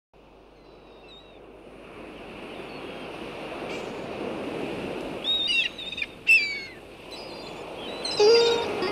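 Ocean surf, a steady wash of breaking waves that fades in from silence, with a few loud bird cries that fall in pitch about halfway through. Music starts near the end.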